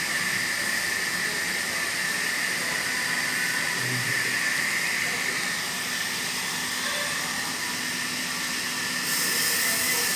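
Steady hissing noise, strongest in the upper range, getting a little louder about nine seconds in.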